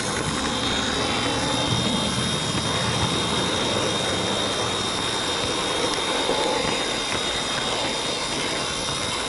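Märklin model train running along the track, heard from on board a wagon coupled to a V60 diesel locomotive model: a steady rolling rattle of wheels on rail with a steady high whine over it.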